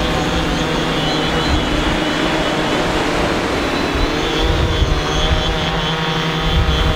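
Small quadcopter drone's propellers whining as it hovers and flies low close by, a whine of several stacked pitches that wavers a little at first and then holds steady. Low rumbling thumps come in over it in the second half.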